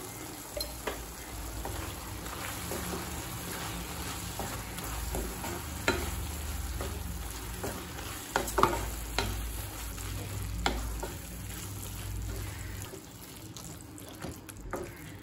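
Onion-tomato masala with ground spices sizzling in a kadai as it is stirred with a spatula, with a few sharp knocks and scrapes of the spatula against the pan. The spices are being fried into the masala until the oil separates.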